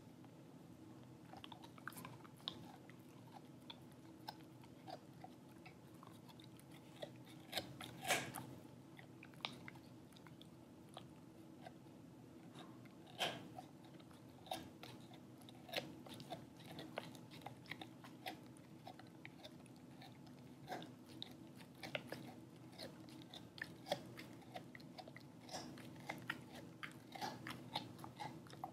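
Dog chewing a rawhide strip: irregular crunching and gnawing clicks, loudest about a quarter and half of the way through.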